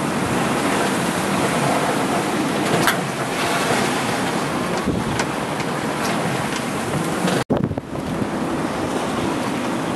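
Wind and breaking waves rushing past a sailing yacht under way in a choppy sea, with wind buffeting the microphone. A sudden brief dropout comes about seven and a half seconds in.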